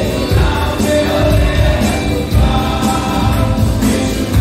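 Group singing a Hindi Christian worship song with musical accompaniment and a steady beat.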